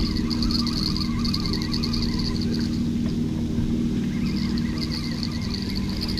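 Insects chirring in rapid high pulses, dropping out for about a second midway, over the steady hum of a motor.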